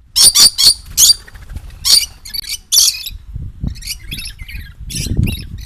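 A young bird (chick) giving a rapid series of short, sharp, high-pitched calls, loudest and closest together in the first three seconds and softer after that, with a low handling rumble underneath.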